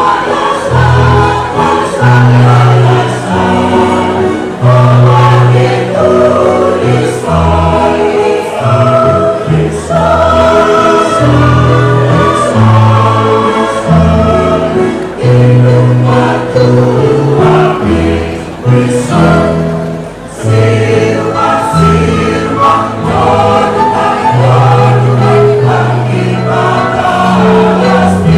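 Mixed choir of men and women singing in harmony, accompanied by an electric keyboard.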